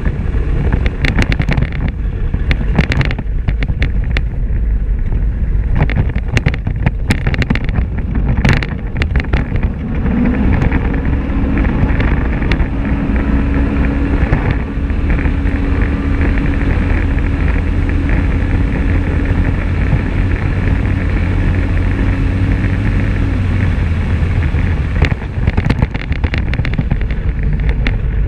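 Polaris RZR XP 1000 side-by-side's twin-cylinder engine running at speed, with wind on the microphone. Rattles and knocks come from the dirt and gravel track. Through the middle stretch the engine holds a steady drone; near the start and again near the end the ride is rougher, with frequent sharp clatters.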